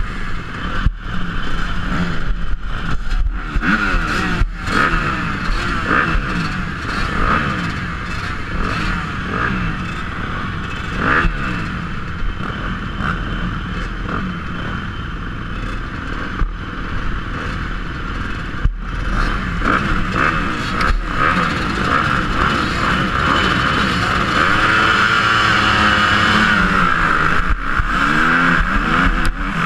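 Motocross bike engines at a race start line, running and blipping their throttles together. In the last few seconds the engines go up to full throttle and the bike with the camera accelerates away down the dirt track.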